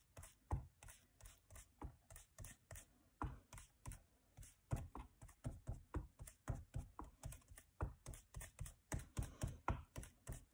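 Foam ink blending tool tapping and dabbing on an ink pad and over a stencil on card: an irregular run of soft taps, about two to four a second, coming closer together after the first few seconds.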